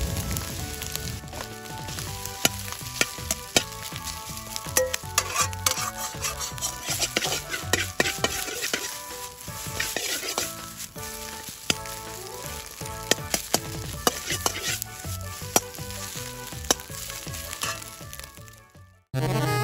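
Fried rice sizzling in a Chinese wok over a hot campfire, with a utensil clanking and scraping against the wok in quick, irregular strikes as the rice is stir-fried. It cuts off suddenly near the end.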